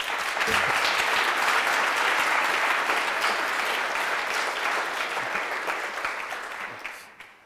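An audience clapping, dense and steady, then fading out near the end.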